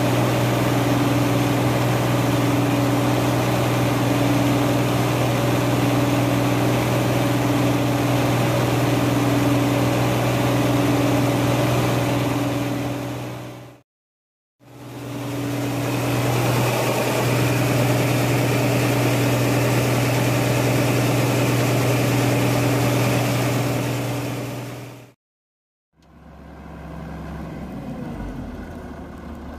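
Arbos 125 combine harvester's Perkins six-cylinder diesel engine running steadily at working speed while its unloading auger pours wheat into a trailer. The sound cuts off abruptly about 14 seconds in and again near 25 seconds, and returns quieter near the end.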